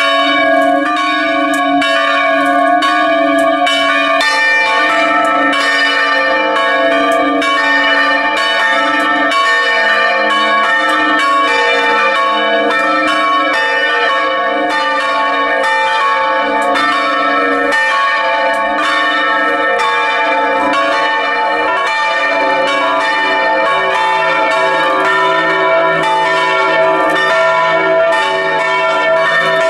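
Several bronze church bells swinging and ringing together in a peal, heard up close in the belfry, their strokes overlapping continuously. The mix of pitches changes about four seconds in and again about twenty-one seconds in.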